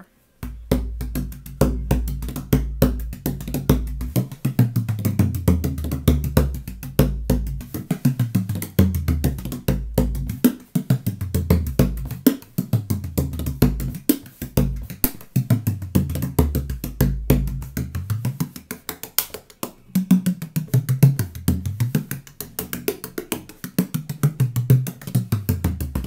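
16-inch Alfred Alfonso DaRed tunable bodhrán played non-stop with a hot-rod style tipper (a bundle of thin rods), in quick, dense traditional rhythms of crisp strokes on the skin. Under the strokes, the drum's deep tone slides up and down in pitch.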